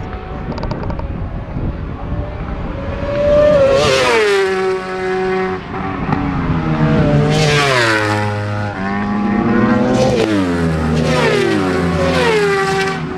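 Racing motorcycles at high revs going past one after another, several in turn, each engine note climbing and then dropping in steps as the bike shifts down.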